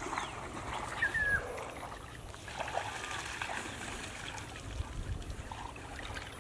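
Light splashing and sloshing of shallow water as people wade and grope with their hands in a muddy canal.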